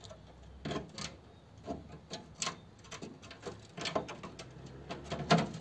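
Light, irregular metallic clicks and taps as a loose piece of sheet metal is handled against the rusty steel body of a 1955 Ford 100E Anglia, about a dozen in a few seconds.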